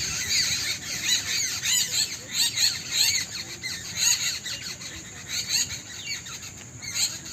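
Many small birds chirping at once in a dense early-morning chorus: a constant stream of short, high, rising-and-falling chirps overlapping one another.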